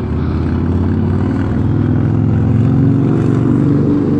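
Low engine drone of a passing motor vehicle, swelling to its loudest about three seconds in and easing off near the end.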